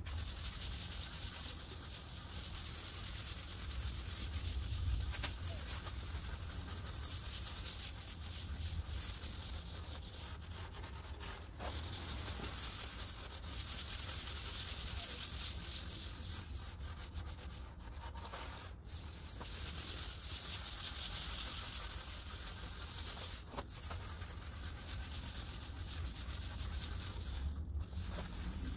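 Hand-held applicator pad rubbing finish across a white oak tabletop in long back-and-forth strokes: a steady rough rubbing hiss that breaks off briefly a few times between strokes.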